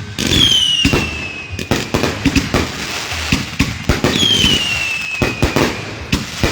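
Consumer fireworks going off in a rapid barrage of bangs and crackles, with a whistle falling in pitch about half a second in and another about four seconds in.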